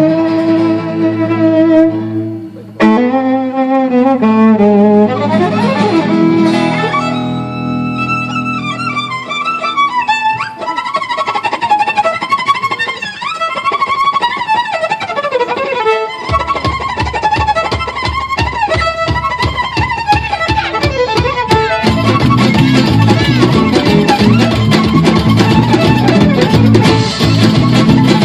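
A live band playing a fast instrumental tune with a busy melodic lead; a steady low beat comes in about halfway and the accompaniment fills out soon after.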